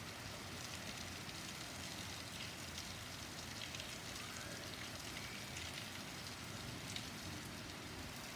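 Heavy rain pouring steadily, an even hiss of rain on surfaces.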